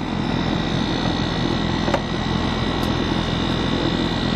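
Steady hum and whir of outdoor air-conditioner condenser units running, with a short click about two seconds in.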